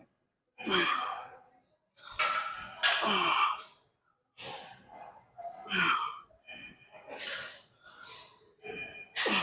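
Indistinct talking and breathy voice sounds in short bursts with pauses between them.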